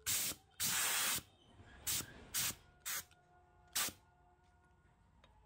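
Pressurised spray hissing in six short bursts. The second burst is the longest, about half a second, and the last comes a little before four seconds in.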